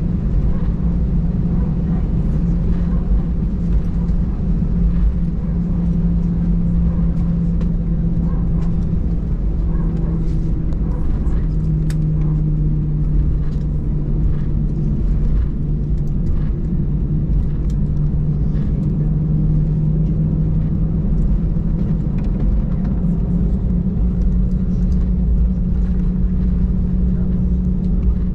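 Cabin drone of an Airbus A320 taxiing, heard from inside the cabin: a steady engine hum with a low rumble beneath. The hum's low tone drops slightly in pitch partway through and rises again in the last few seconds.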